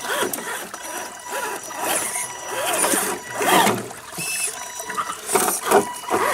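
Electric motor and geared drivetrain of a radio-controlled scale crawler whining in short bursts, the pitch rising and falling as the throttle is worked, with scattered clicks and knocks.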